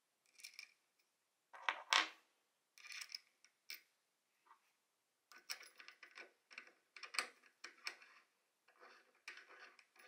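Small metal parts clicking and scraping as a nut is turned by hand onto the threaded shaft of an electric motor. The sounds come as irregular short clicks and rattles, loudest about two seconds in.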